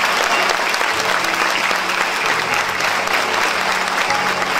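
An audience applauding: dense, steady clapping with no break.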